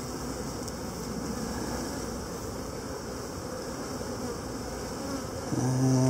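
A mass of honey bees buzzing steadily on a frame lifted from a nuc. Near the end a louder, lower, steady hum sounds for about a second.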